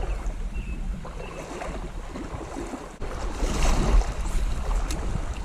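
Creek water running, with wind buffeting the microphone as a low rumble; the noise swells louder about three and a half seconds in.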